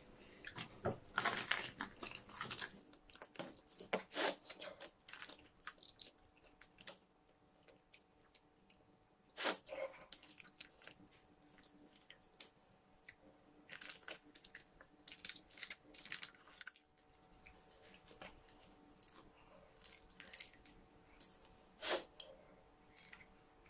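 A person biting and chewing an egg without using her hands, mouth close to the microphone: irregular short clicks and smacks, with louder ones about 4, 9.5 and 22 seconds in.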